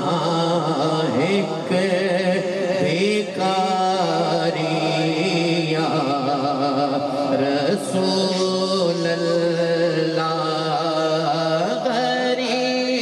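Naat recitation: a man sings long, wavering melismatic lines into a handheld microphone over a steady held drone, which steps up in pitch near the end.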